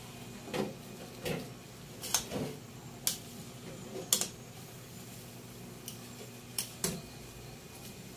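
Metal cookware on a stove: a pan and utensil giving a string of irregular clinks and knocks, some in quick pairs, over a steady low hum.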